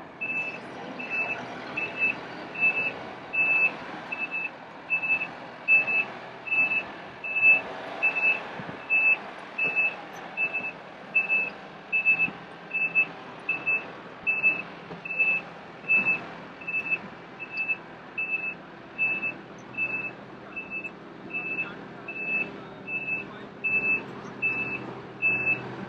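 Back-up alarm of a small yellow construction machine beeping evenly, about three high single-tone beeps every two seconds.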